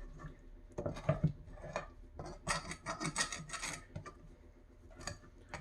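A pan being scrubbed or scraped: a run of quick rasping strokes, densest about two to four seconds in.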